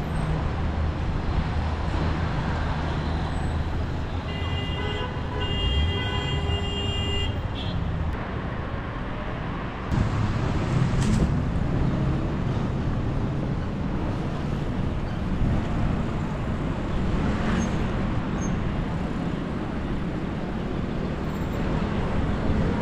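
Road traffic on a town street heard from a moving bicycle: a steady rumble of vehicle engines and tyres. A steady high tone, like a horn, sounds for about three seconds a few seconds in, and the traffic grows louder as a vehicle passes about ten seconds in.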